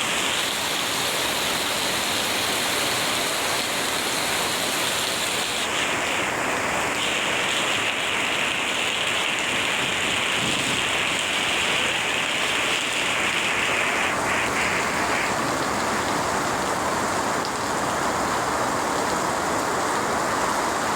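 Heavy rain falling steadily, an even, dense hiss with no break.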